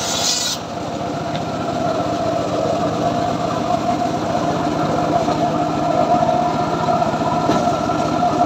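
Homemade engine-driven circular saw bench running steadily, its blade spinning free with a constant ringing hum. A bright hiss of the blade in wood cuts off about half a second in.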